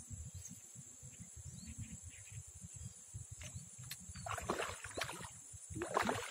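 Steady high-pitched insect buzzing in the background, with wind buffeting the microphone. Brief rustling swishes come about four and a half seconds in and again near the end.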